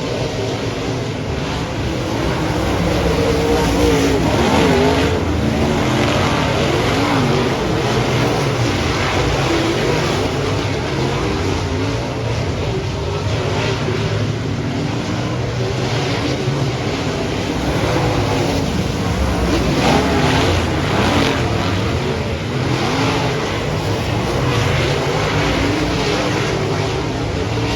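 Dirt-track race car engines running laps, their pitch rising and falling as they lift and accelerate; several cars are heard at once.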